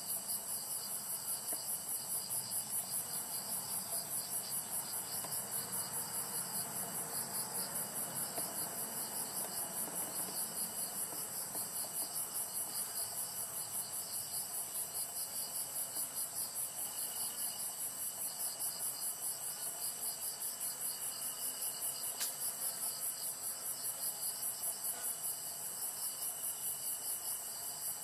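Background chorus of singing insects: a high, rapidly pulsing chirr that keeps on without a break, with a fainter thin steady trill from another insect that comes and goes.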